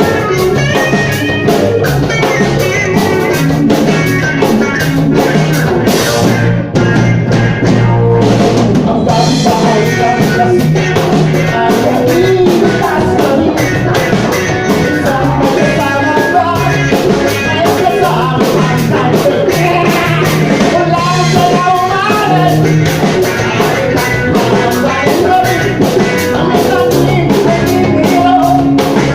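Rock band playing a song on drum kit and guitar, with a steady beat.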